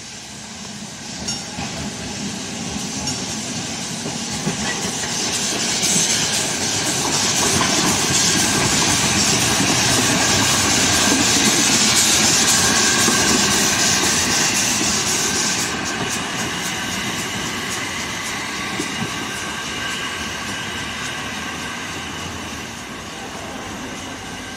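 Narrow-gauge steam tank locomotive passing close by with its train: rumble of wheels and running gear under a loud hiss of steam, which cuts off suddenly about two-thirds of the way through. The train then fades as it moves away.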